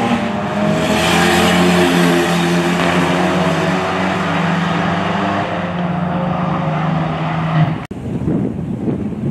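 Two cars racing side by side at full throttle in a roll race, engines running loud with a steady, slightly falling pitch. About eight seconds in the sound cuts off abruptly and a rougher engine noise takes over.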